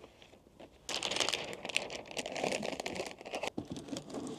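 Paper and cardboard packaging rustling and crinkling as a greeting card and cushioning sheet are handled in a cardboard fruit gift box and its lid is closed. It starts about a second in, as a busy rustle with many small clicks.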